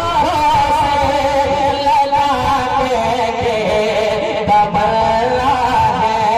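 A man singing a naat in the melodic style, holding long wavering notes with no clear words, through a stage microphone.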